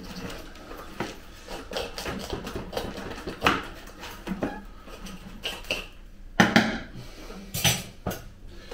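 Irregular clicks, knocks and scrapes, with two louder knocks near the end, from working a tightly root-bound root ball loose in its plant pot.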